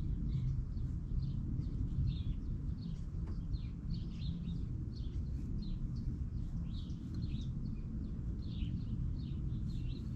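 Small birds chirping over and over, short high calls all through, over a steady low rumble.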